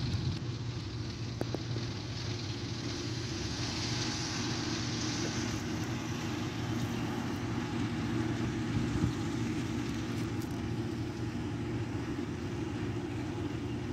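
Heavy diesel engines running steadily: a KamAZ dump truck and a Don-680M forage harvester chopping grass into a truck beside it, heard as a continuous low drone.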